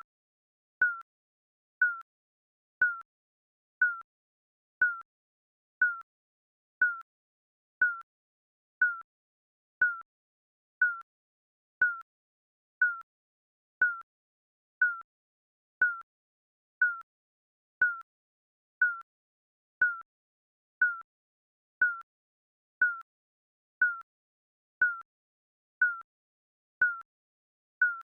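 Digital countdown timer beeping: a short, sharp electronic beep once a second, each a single tone that dips slightly in pitch, with silence between beeps.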